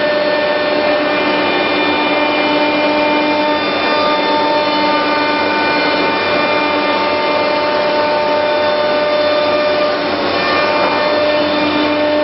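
Biesse Rover 23 CNC woodworking machining centre running: a steady mechanical hum and rush with several held tones over it, as the machining head travels along the machine.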